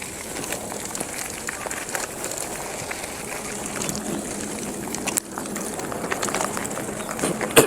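Bicycle ride on a rough trail: a steady rushing hiss of wind and tyres, with scattered clicks and rattles. The level dips briefly about five seconds in, and one sharp knock comes near the end.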